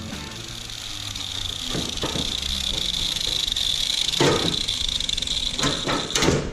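Rusty sheet-metal truck dash section knocking and clunking a handful of times as it is handled on a steel bench, over a steady high-pitched whine that cuts off near the end.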